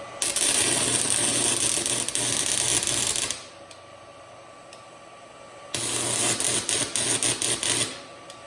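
Stick welding arc crackling in two runs, about three seconds and then about two seconds long. The second run breaks up into sputters near its end. The welder is a cheap hobby stick (arc) welder laying weld on a steel fireplace grate.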